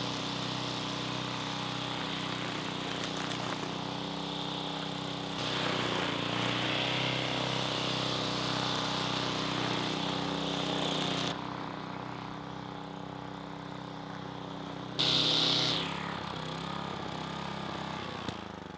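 Wheeled walk-behind string trimmer's small gas engine running steadily as it is pushed through tall weeds. It gets louder about five seconds in, drops back a little past halfway, and has one brief louder burst about three-quarters of the way through.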